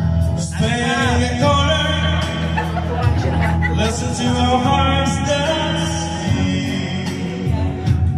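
A man singing into a microphone over backing music.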